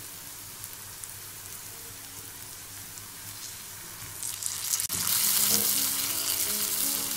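Onion-and-spice masala frying in oil in a pan, sizzling steadily. Just under five seconds in come a few clicks and a sharp knock, and the sizzle turns much louder as the stuffed eggplants go into the hot pan.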